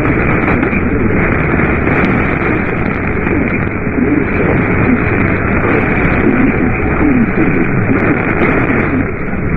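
Loud, steady static from a radio receiver on a weak or noisy signal, a hiss with a sharp upper cut-off, with faint garbled sound buried in it.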